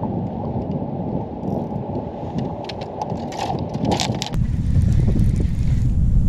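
Wind buffeting the microphone, a steady rumble that turns deeper and louder about four seconds in, with a few light clicks just before the change.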